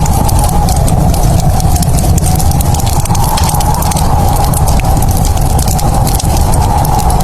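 Wood fire crackling in a fireplace: dense, irregular snaps and pops over a steady low rumble.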